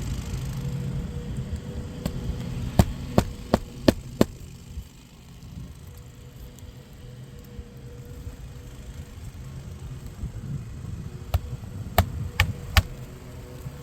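Nails being driven into a roof shingle: a run of five quick sharp strikes about three seconds in, then four more near the end, over a steady low hum.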